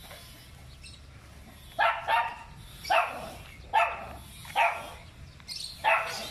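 A dog barking angrily over and over, about once a second, starting about two seconds in, with some barks coming in quick pairs.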